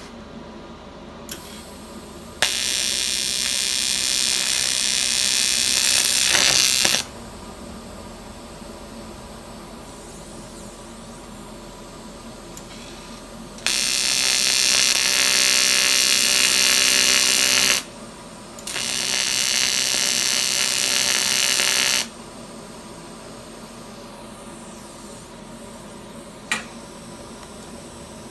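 AC TIG welding arc on cast aluminium, buzzing loudly in three separate runs of a few seconds each as 4043 filler is dabbed into a cracked air blow gun to seal a leak. A short click comes just before the first run, and a steady machine hum continues between the runs.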